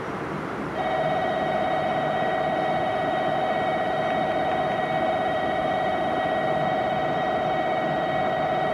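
A steady alarm tone starts about a second in and holds unchanged, over a background hiss.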